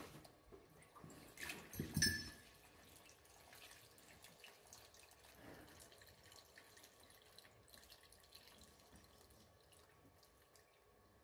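Wet splashing and dripping of birth fluids from a calf just delivered, with a louder wet slap about two seconds in, then faint.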